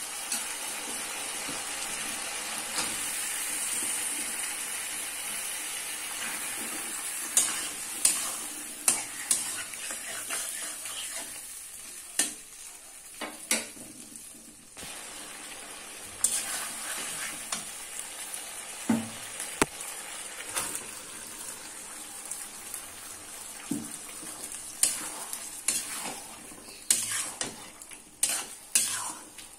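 Spice paste sizzling in oil in a karahi while a spatula stirs and scrapes the pan. The sizzle is steady for the first several seconds, then quietens, and sharp scrapes and knocks of the spatula against the pan come often, most of all near the end.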